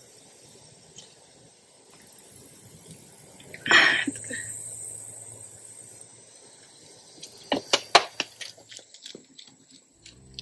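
Drinking from a plastic water bottle: one short, loud mouth sound about four seconds in, then a quick run of sharp clicks and crackles from the plastic bottle around eight seconds.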